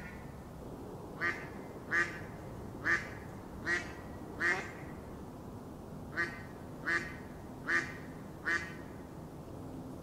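Mallard quacking: nine short quacks in two runs of five and four, a little more than one a second, with a pause of over a second between the runs.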